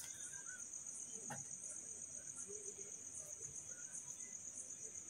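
Faint, steady high-pitched insect trill, like crickets, pulsing slightly, with a single soft click about a second in.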